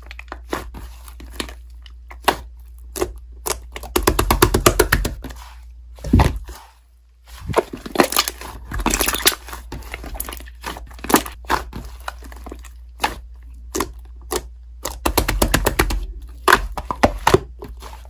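Strawberry cream slime being squished and stretched by hand, making scattered clicks and pops, with runs of rapid popping about 4, 8 and 15 seconds in.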